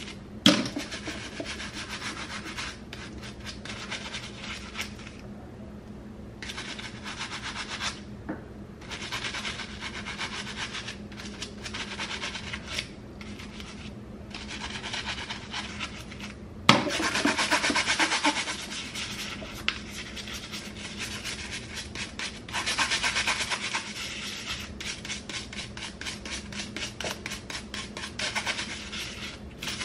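A bristle cleaning brush scrubbing fast over wet hair-comb teeth, a dense scratchy rubbing that keeps going with short pauses. There is a sharp knock about half a second in and another about halfway through, with the scrubbing louder for a couple of seconds after the second.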